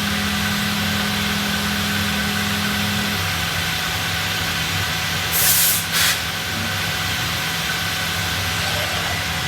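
Steady hum of the sanding machinery running in a robotic sanding cell for MDF doors, its low tone dropping slightly about three seconds in. Two short, loud hisses come in quick succession about halfway through.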